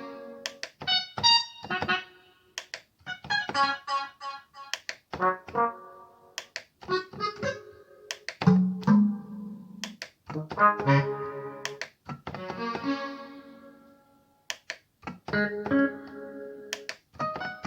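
Korg N264 synthesizer keyboard played in short bursts of chords and notes, each stopping after a second or two, as combination programs are stepped through to find the saved organ sound.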